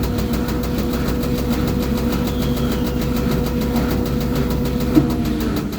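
LG front-load washing machine in its spin cycle: a steady motor-and-drum hum with an even, rapid pulsing, its pitch sagging slightly near the end. The owner judges the spin stable, way better than before the fix.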